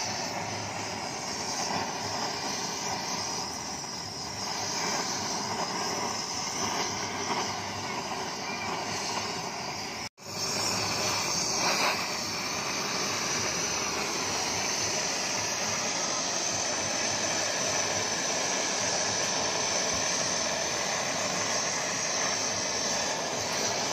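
Gas torch flame running with a steady roar and hiss as it heats molten metal in a graphite mold. The sound cuts out for an instant about ten seconds in, then carries on.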